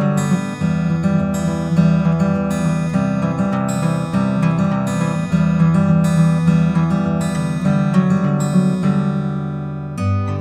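Background music of strummed acoustic guitar chords, steady throughout, with a deeper bass part coming in near the end.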